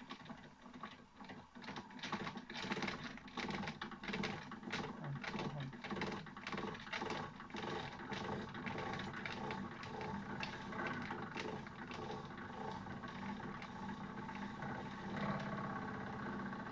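Wilesco toy steam engine running with a fast, even clatter, getting louder over the first few seconds; its cylinder is not yet fully warm.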